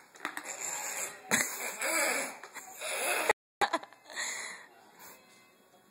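A toddler's breathy vocal sounds and soft laughing, in short bursts, with a few sharp knocks. The sound cuts out completely for a moment about three seconds in.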